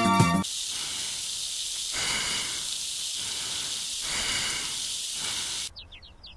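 An airy hissing sound effect that swells and eases a few times, after a tail of music cuts off half a second in. Near the end the hiss drops away, leaving a few faint, short falling chirps.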